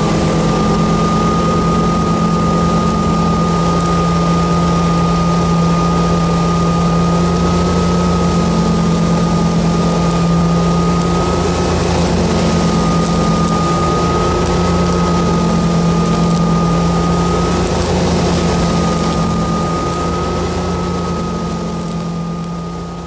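Boat engine running steadily under way, with a steady high whine above the engine note.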